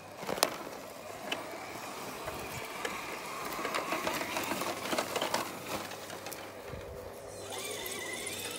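1/10-scale RC rock crawler's electric motor and geared drivetrain whirring as it crawls through long grass, with scattered clicks and rustling. Near the end it turns into a steadier whine.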